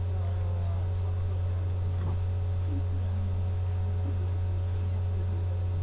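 Steady low electrical hum, a mains hum carried on the recording, unchanging throughout.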